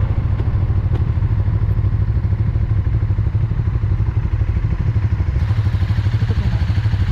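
KTM 1290 Super Duke R V-twin engine idling at low revs, a steady low rumble with an even pulsing beat.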